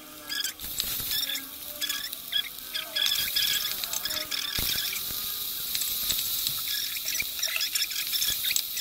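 Whole spices, onion and potato pieces frying in hot oil in an aluminium pressure-cooker pot, sizzling and crackling with fine squeaky spits, while a wooden spatula stirs them with a few knocks against the pot.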